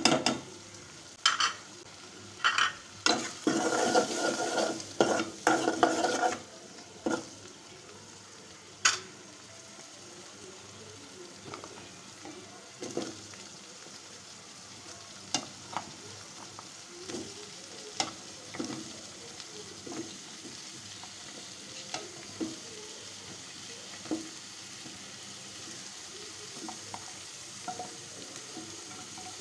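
A metal spoon stirring and scraping shrimp curry in an aluminium pot for the first several seconds, with the curry sizzling as it fries. After that the sizzle carries on steadily, broken by small taps as raw radish slices are dropped into the pot.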